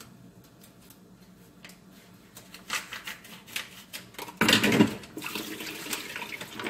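A few light clicks and taps, then water splashes out suddenly about four and a half seconds in and keeps running.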